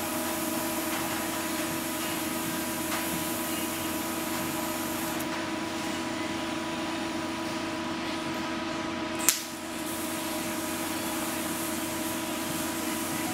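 MIG welder arc crackling and hissing steadily as sheet steel is welded on a car body. It eases for a few seconds in the middle, leaving a steady hum, then a single sharp click about nine seconds in, and the crackle picks up again.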